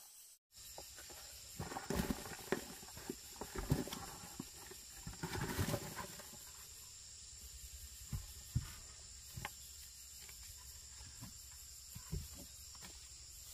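Loose clods of earth tipped from a plastic bucket into a wooden plank form, with a rustling, crunching pour about five seconds in. Footsteps crunch on dry leaves and twigs, and a few knocks follow. A steady high insect whine runs underneath.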